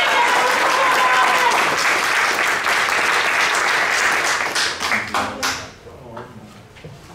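Audience applause, with a few voices calling out at the start; the clapping dies away about five and a half seconds in, leaving a few scattered claps.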